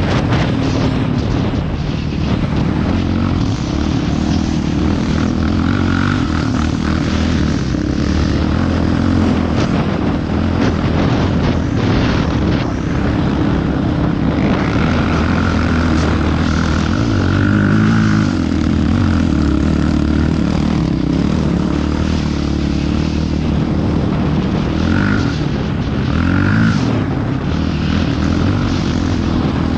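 ATV engine running under throttle as the quad climbs a sand dune, its pitch rising and falling a few times around the middle, with wind rushing over the helmet or handlebar-mounted microphone.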